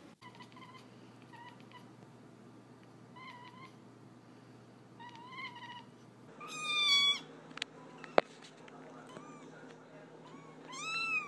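A cat meowing over and over: a run of short, faint mews, then two louder, longer meows, one near the middle and one rising and falling near the end. A single sharp click comes a little after the middle.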